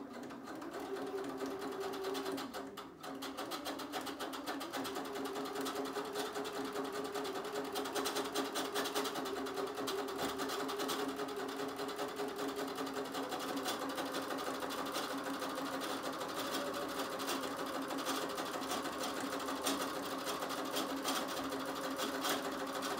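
Electric sewing machine running steadily, sewing a straight-stitch line of shirring with elastic thread in the bobbin. It stops briefly about three seconds in, then runs on evenly.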